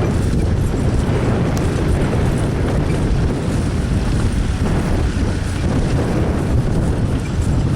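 Vintage farm tractor engine running steadily with a low, even rumble.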